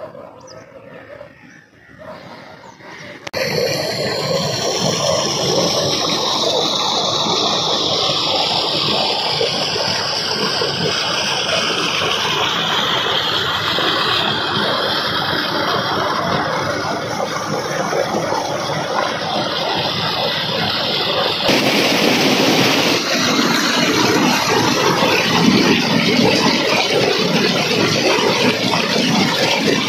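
Tubewell water gushing from a large outlet pipe into a concrete tank: a loud, steady rush of pouring water that starts abruptly about three seconds in, after faint outdoor sounds. It turns louder and brighter about two-thirds of the way through, heard from close beside the falling stream.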